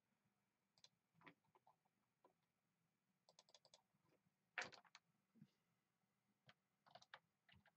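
Faint, scattered clicks of computer keyboard keys or a mouse, some in quick little runs, the loudest cluster about halfway through.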